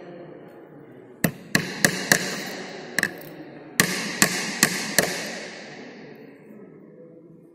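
Hammer driving small nails into plywood panels: a run of sharp, ringing strikes, four quick ones about a second in, then a single one, then four more around four to five seconds. A steady low background noise runs underneath.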